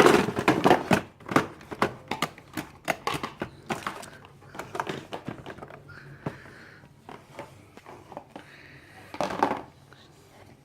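Hard plastic toy parts clicking and knocking as they are handled and fitted together, a rapid run of clicks for the first few seconds, then sparser taps with a louder cluster near the end.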